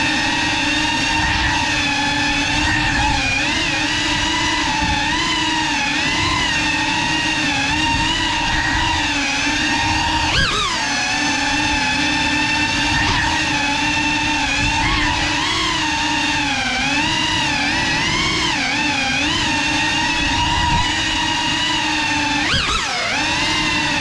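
GEPRC Cinelog 35 cinewhoop's motors and propellers whining in flight, the pitch wavering up and down with the throttle. The pitch swoops quickly twice, about ten seconds in and near the end.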